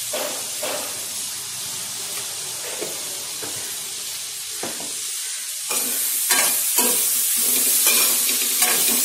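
Sliced ivy gourd (tindora) sizzling in oil in a metal kadai. About six seconds in, a spoon starts stirring and scraping against the pan, and the frying grows louder.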